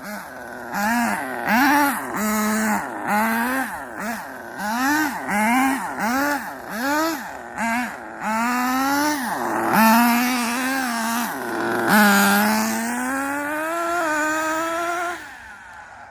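Radio-controlled car's motor revving in quick repeated bursts, its pitch rising and falling about one and a half times a second, then holding a longer run of slowly climbing pitch before cutting off near the end.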